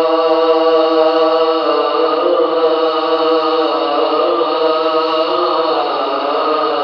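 A man's voice chanting in long, drawn-out held notes that step from pitch to pitch every second or two, in the melismatic style of Islamic religious chanting.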